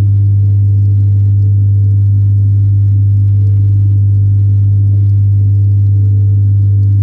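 Steady, loud low hum with fainter higher overtones from a submersible pump running in the fish tank, heard underwater.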